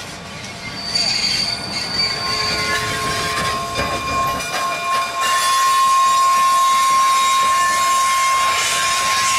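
Canadian Pacific 2317, a 4-6-2 steam locomotive, moving slowly with its wheels squealing against the rails on the curve. A steady high squeal sets in about two seconds in and holds, with other shrill tones coming and going over it and a low rumble underneath.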